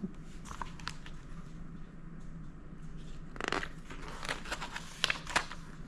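Paper picture book being handled: a short rustle about three and a half seconds in, then a few light ticks and taps, over a faint steady hum.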